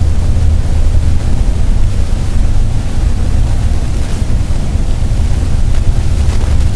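Steady low rumble of a vehicle driving at highway speed, engine and road noise heard from inside the cab, with some wind noise on the microphone.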